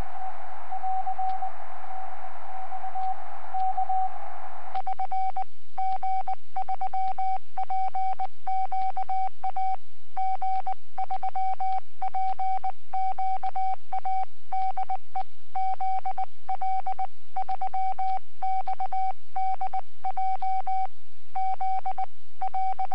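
Morse code from a ham radio transceiver in CW mode on the 80 m band: a single pitched tone keyed on and off in dots and dashes. For about the first five seconds it comes through with band hiss as a received signal; then the hiss cuts out and the keying turns clean and crisp, the rig's sidetone as the operator sends.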